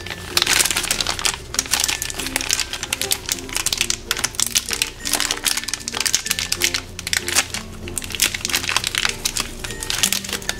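Thin clear plastic bag crinkling continuously as it is handled and worked open to get at small plastic toy stools, over light background music.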